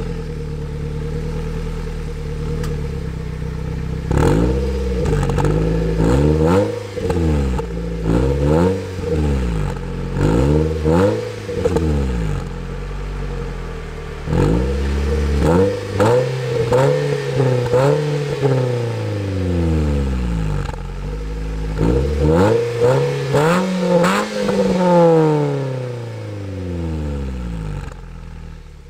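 Nissan Note Nismo S's 1.6-litre four-cylinder running through a Nismo titanium muffler: it idles for a few seconds, then is revved in a long series of quick throttle blips, each climbing and falling back. It settles back to idle and fades near the end.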